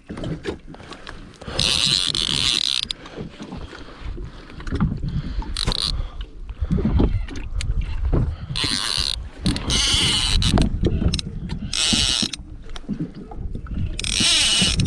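Handling noise on a fishing kayak: irregular knocks and bumps, with separate bursts of hiss scattered through.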